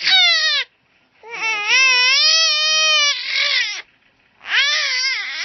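Baby crying in three high-pitched wails with short silent breaks between: a brief one at the start, a long wavering wail of about two and a half seconds beginning about a second in, and another near the end.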